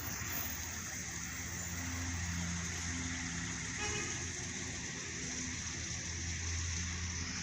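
Fire apparatus engine running steadily with a low, even hum and a hiss above it.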